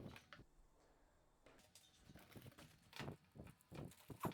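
Near silence with a few faint taps and knocks in the second half: saw parts and accessories being handled and set down while unpacking.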